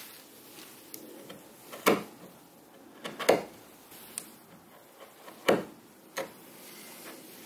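A steel chisel pressed down by hand into Baltic birch plywood, paring the corner of a routed groove square. Three loud sharp snaps and a lighter one as the edge cuts through the plies, with small clicks between.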